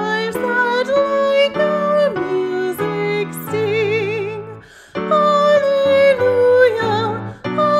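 A woman singing a hymn solo with vibrato over a steady, sustained instrumental accompaniment. There is a short break for breath about five seconds in.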